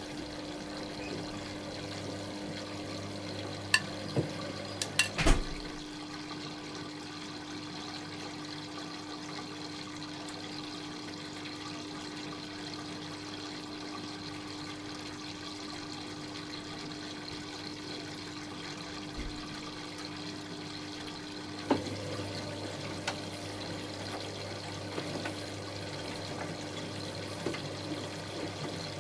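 Dyson Contrarotator CR01 washing machine mid-cycle, water running and sloshing in the machine over a steady hum. A few sharp clicks come around five seconds in, and a low hum cuts out then. It comes back with another click about 22 seconds in.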